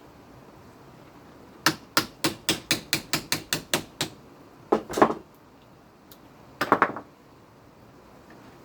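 A quick run of about ten light hammer taps on metal, roughly four or five a second, then two heavier knocks and a short clatter of metal near the end.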